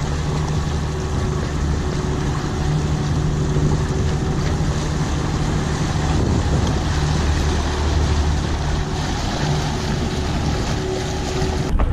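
Boat engine running steadily with a low hum, under a rush of wind and water noise.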